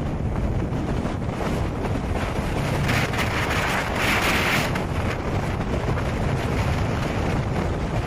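Gale-force wind buffeting a phone's microphone with a heavy low rumble, over stormy surf washing across the shore. Louder hissing surges come about three and four seconds in.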